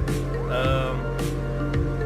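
Background music with a steady beat over sustained held chords.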